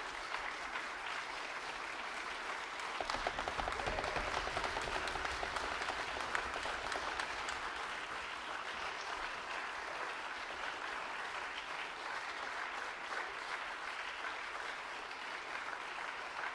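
Audience applauding with sustained clapping, swelling louder a few seconds in and then holding steady.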